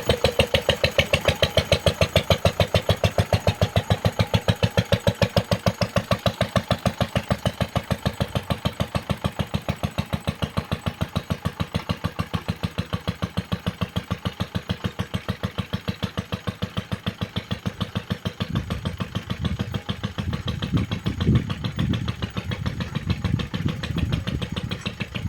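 A homemade narrow-gauge locomotive's engine running with a slow, even beat of about four to five strokes a second. From about eighteen seconds in, uneven low rumbling joins it.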